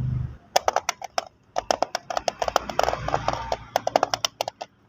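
Close-up eating sounds: a rapid, uneven run of sharp clicks and smacks that starts about half a second in and lasts about four seconds.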